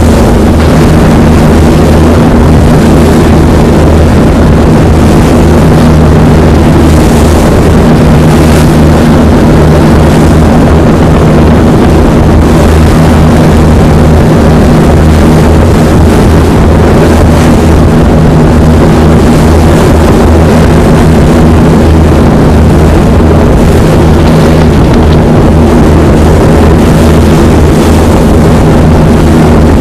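Diesel engines of a former RNLI Arun-class lifeboat running steadily under way, a loud low drone with a hiss of wind and sea over it and a few brief louder rushes about seven to nine seconds in.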